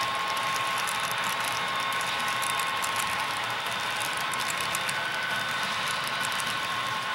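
HO-scale model train running: a steady whirring hum with light, rapid clicking from the wheels on the track.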